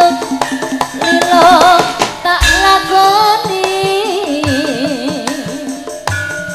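Javanese gamelan music: a singer's wavering melody over ringing bronze metallophones and regular hand-drum strokes.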